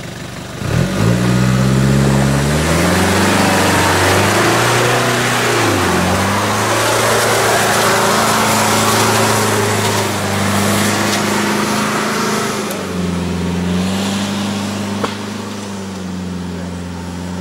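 Toyota Land Cruiser's engine revving hard under load as it climbs a muddy, rutted track, the revs rising sharply about a second in and rising and falling with the throttle, with the noise of the tyres churning mud over it; the engine settles lower near the end as the truck pulls away.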